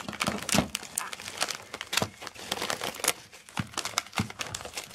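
Plastic pet-food pouches and packets crinkling and rustling as hands pull them out of a cut plastic mesh bag, a run of small irregular crackles.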